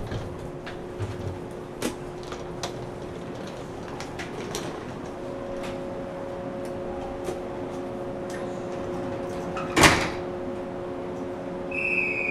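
Inside a 475-series electric train car standing at a station: a steady electrical hum with scattered clicks and knocks, then a loud thump of the sliding doors shutting about ten seconds in. A short, high buzzer tone follows near the end.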